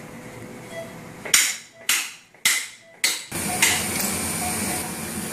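Hammer blows on a SHUKLA Knee implant extraction instrument, driving it to loosen a knee implant: four sharp metallic strikes about half a second apart, each ringing briefly, then a lighter strike.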